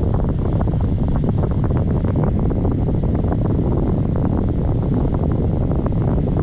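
Honeywell HT-900 TurboForce air circulator fan running, its airflow buffeting the microphone as a steady, loud low rumble of wind noise.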